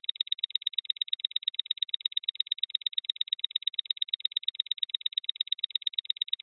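Countdown-timer sound effect: quick, evenly spaced clock-like ticking that runs on steadily.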